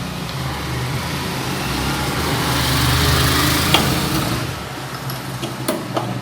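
A motor vehicle's engine passing by, swelling to a peak about halfway and fading again over a steady low hum. A few sharp metallic clicks come near the end as a bearing puller is tightened with an Allen key.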